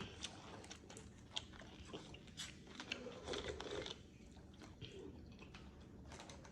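A person chewing food, with many small, sharp, wet mouth clicks and smacks.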